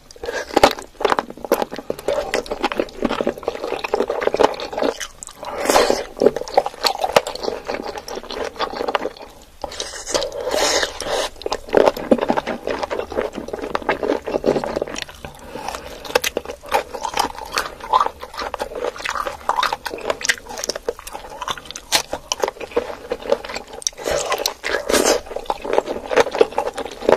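Close-miked ASMR eating sounds of spicy sauce-coated chicken feet being bitten, chewed and sucked: a dense run of wet mouth clicks and smacks.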